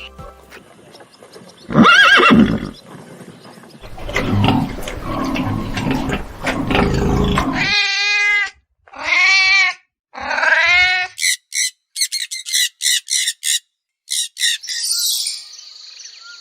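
A run of different animal calls, one after another: a single loud call, a stretch of noisy grunting-like sound, three wavering pitched calls, then a quick series of short high chirps.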